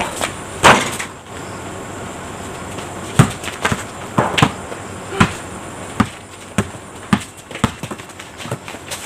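Basketball dribbled on a concrete driveway. Sharp bounces come about two a second from about three seconds in, after a single loud thump less than a second in.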